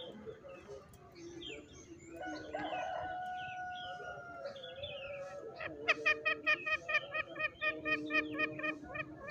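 Green junglefowl calling: a drawn-out call about two seconds in, then a fast run of repeated clucking notes, about three a second, from about six seconds in. Higher bird chirps sound behind it.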